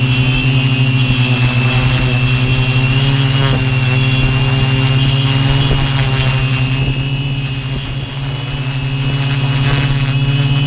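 Multirotor drone's brushless motors and propellers running in flight, heard from the GoPro mounted on the craft: a steady low hum with a thin high whine above it, easing slightly a little after halfway and then coming back up.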